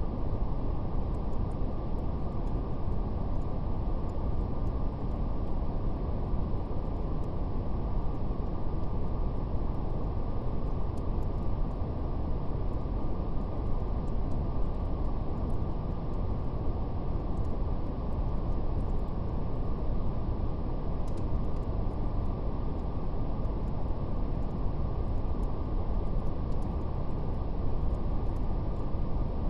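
Steady brown noise, a deep even hiss weighted toward the low end, with faint scattered crackles of a fire over it.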